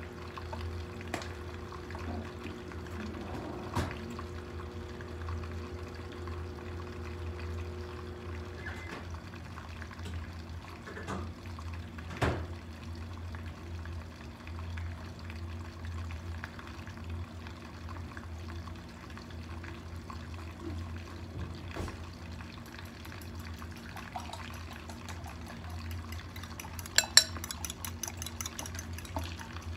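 Steady low kitchen hum with scattered light knocks and clicks of cookware and utensils, and a few sharp clinks of a utensil against a ceramic bowl near the end.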